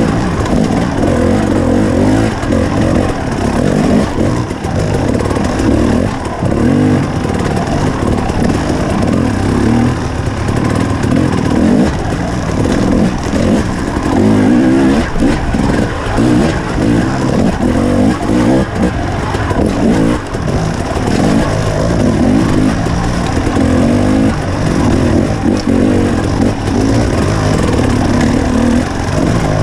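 KTM 300 XC two-stroke dirt bike engine running hard on a trail ride, its pitch rising and falling every second or two as the throttle is worked.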